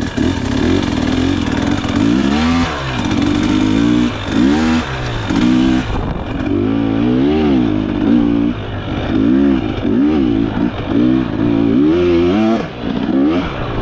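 A 2024 KTM 300XC two-stroke dirt bike engine revving up and down again and again as the bike is ridden, its pitch climbing and dropping every second or two.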